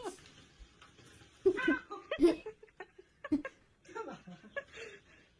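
Short bursts of human laughter and chuckling, with a little speech mixed in.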